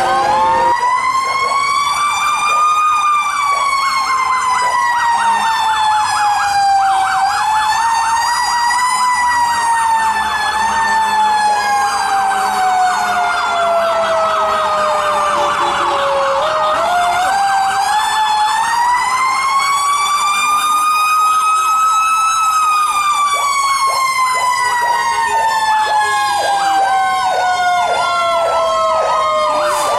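Fire engine's mechanical Q siren winding up and then coasting slowly down in pitch, twice: a short rise, a long fall, another rise and another long fall. A second siren yelps in rapid sweeps over it at times, busiest in the middle and near the end.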